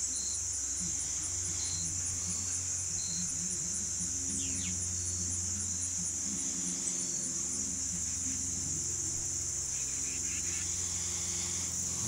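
Steady outdoor chorus of insects: a continuous high-pitched trill with a faint regular pulse a few times a second, over a faint low hum.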